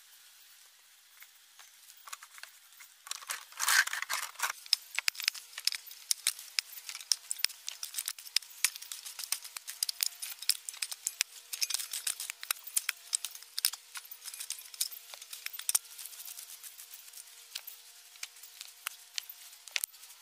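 Dry straw and old litter rustling and crackling as armfuls are handled and tossed onto the ground: a dense run of crisp crackles starting about three seconds in.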